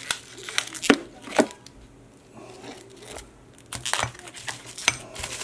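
Plastic bubble wrap and the plastic sleeves of silver bars crinkling as the bars are handled, with a few sharp clicks and knocks.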